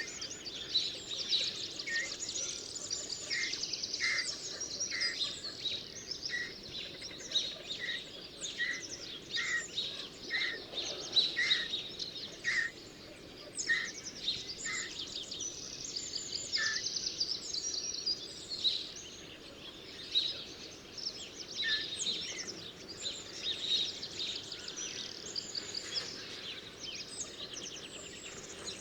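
A chorus of small birds chirping and trilling together. One bird repeats a short note about once a second through the first half, then stops.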